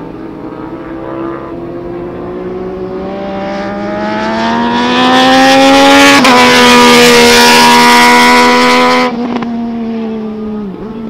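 MV Agusta F3 800's three-cylinder engine through an Anonimoto Tre Forza slip-on exhaust, accelerating hard as the bike comes past. The note climbs and grows loud, with a quick gear change about six seconds in. The sound drops off sharply about nine seconds in as the bike goes by, with another shift near the end.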